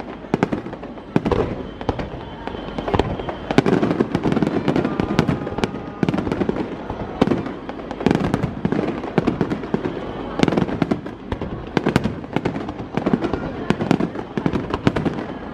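Fireworks display: shells bursting in quick succession, with many sharp bangs and crackles and heavier booming clusters every couple of seconds.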